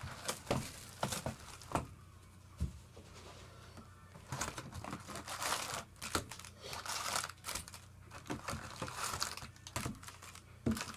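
Plastic wrapping crinkling and tearing as a sealed box of baseball cards is opened, with a few light clicks and handling knocks first and a longer stretch of crinkling from about four seconds in. A steady low electrical hum runs underneath.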